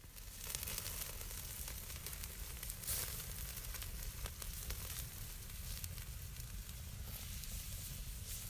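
Wood campfire burning under a spit-roasting chicken, crackling and sizzling, with a louder pop about three seconds in.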